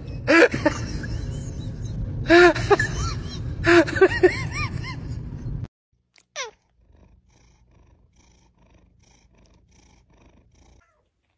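A cat meowing loudly in three short bouts of quick rising-and-falling calls, over a steady low rumble that cuts off about halfway through. Afterwards a single quick falling whistle-like glide, then only faint sound.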